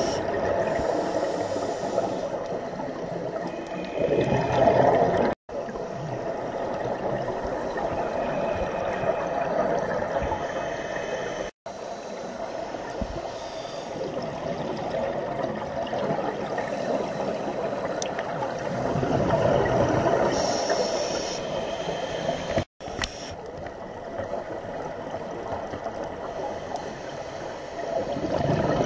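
Underwater wash of a scuba dive recorded on a camera below the surface, with divers' regulator exhaust bubbles gurgling and swelling louder now and then, strongest about 4 seconds in, around 20 seconds and near the end. The sound cuts out completely for a moment three times.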